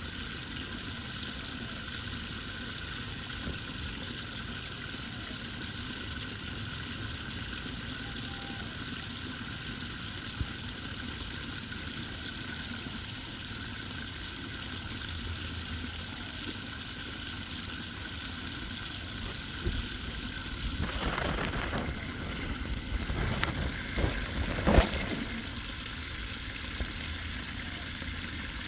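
Floodwater draining steadily into a cleared street drain with a continuous rushing trickle. Near the end it grows louder and rougher for a few seconds, with a few sharp knocks.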